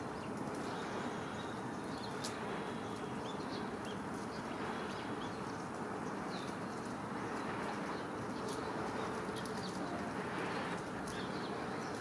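Steady rushing background noise, with a few faint, short, high chirps or ticks of small birds scattered through it.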